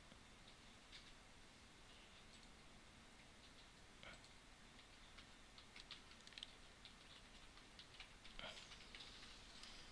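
Near silence: room tone with a few faint scattered clicks, most of them in the second half.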